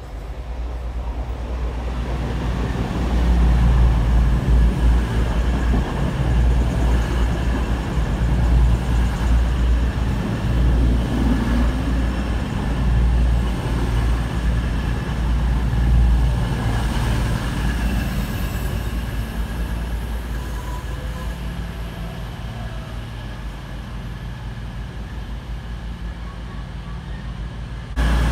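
East Midlands Trains Class 222 Meridian diesel multiple unit passing: the rumble of its engines and wheels on the rails builds over the first few seconds and holds as the coaches go by, with a steady high whine on top, then slowly fades as the train runs away.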